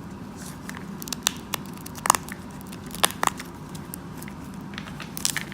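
Trading cards and packaging being handled: a scatter of small sharp clicks and crinkles, the loudest about two and three seconds in.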